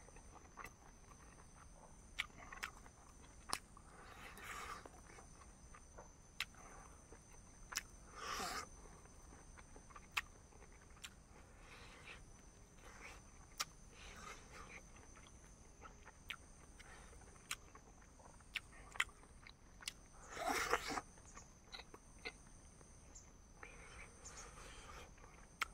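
A person eating chicken and rice, with quiet chewing and biting, scattered sharp clicks and a few louder, longer mouth noises.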